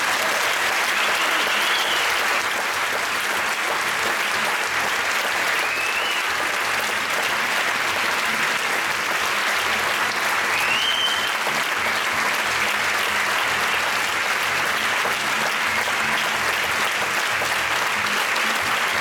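Audience applauding steadily, with a few short, high-pitched gliding sounds rising above the clapping.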